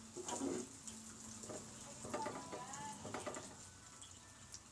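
A spatula knocking and scraping against a frying pan a few times as a fried egg is turned over, over a faint sizzle from the pan.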